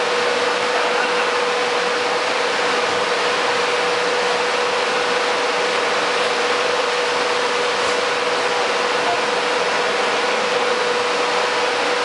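Steady, even rushing of a large air blower with a constant hum. No rise or fall in pitch.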